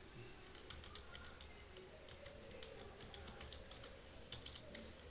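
Faint typing on a computer keyboard: light, irregular key clicks.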